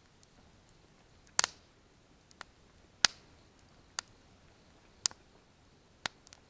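Wood campfire crackling: sharp, irregular pops and snaps about once a second, the loudest ones about one and a half and three seconds in.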